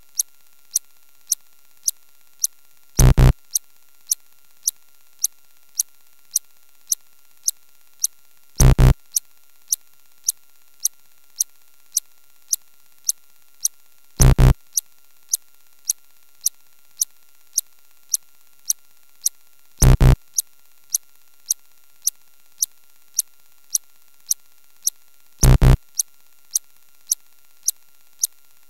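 Electronic sound effects: short clicking ticks about two a second, with a loud low thud every five and a half seconds, five in all, over a faint steady tone.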